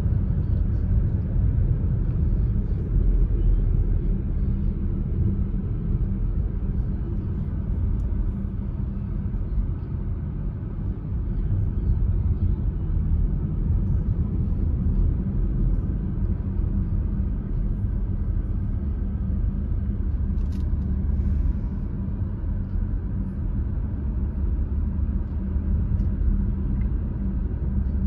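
Steady low rumble of a car's tyres and engine while driving on a paved road, heard from inside the cabin.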